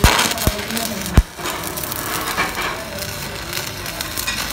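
An angle grinder grinds the damaged steel thread on a tractor trolley's rear axle end, stopping abruptly about a second in. Then the steady crackle of electric arc welding follows as weld is laid onto the axle end to rebuild it.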